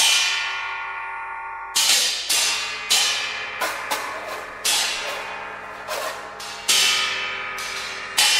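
Contemporary ensemble music made of irregular sharp strikes on metal percussion, about nine of them, each left to ring with a bright, many-toned sound that dies away slowly.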